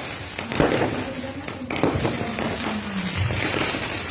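New Year's fireworks going off: a few sharp bangs and crackling over a steady background din.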